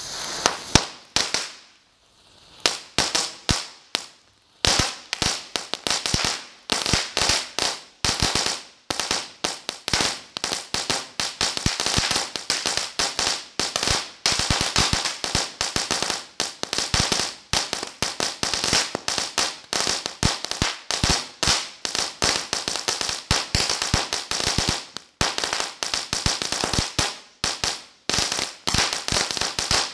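Ground-fired crackling firework cake going off: a few scattered pops with short gaps at first, then from about five seconds in a near-continuous barrage of shots, each breaking into rapid sharp crackling.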